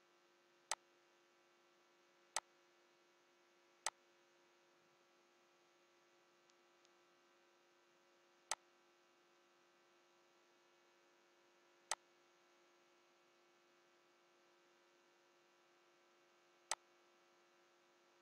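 Six sharp, single computer mouse clicks at irregular intervals, over a steady low electrical hum from the recording.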